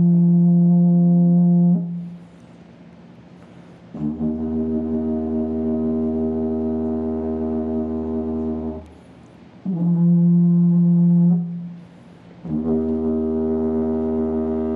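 Didgeridoo playing a low, steady drone rich in overtones, broken twice by a louder, higher-pitched toot held for about two seconds, at the start and about ten seconds in, with short quieter gaps between the phrases.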